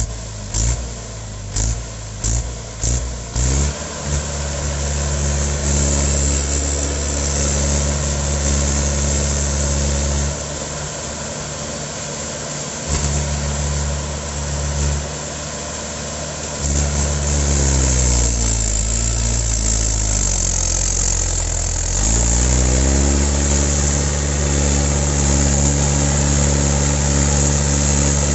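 Mahindra 575 DI tractor's four-cylinder diesel engine working under the load of a heavily loaded sugarcane trolley. A few short loud pulses come in the first few seconds, then the engine runs steadily. Near the three-quarter mark its speed sags and then picks up again.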